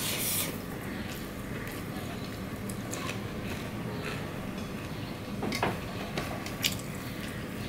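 Eating with the hand: fingers squishing and mixing rice on a stainless-steel plate, with chewing and a few sharp clicks of fingers against the plate. A steady low rumble runs underneath.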